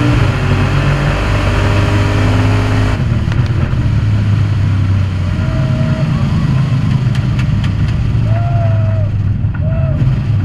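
Drag car's engine running at low speed, heard from inside the cockpit as a steady low drone. About three seconds in, the hiss over it drops away.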